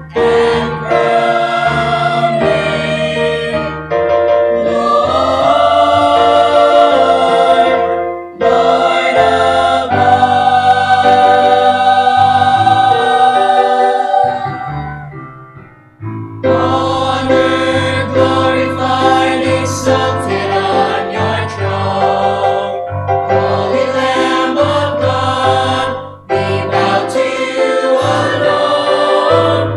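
A mixed choir of men and women sings a gospel anthem, holding long notes between short breaks; about sixteen seconds in the sound fades almost away before the choir comes back in at full strength.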